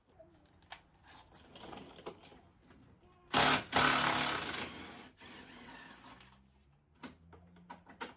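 A power tool rattles on a suspension bolt in one loud burst of about a second and a half, a little after three seconds in. Lighter clicks and clinks of tools on metal come before and after it.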